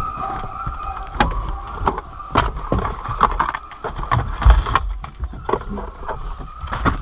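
Rummaging in a pickup truck's cab and glove box for shotgun shells: a scattered run of clicks, knocks and rattles from things being handled and moved, over a steady high tone.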